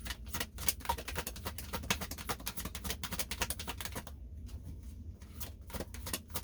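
Rapid, irregular clicking and rustling of small objects being handled and rummaged through, with a short lull about four seconds in.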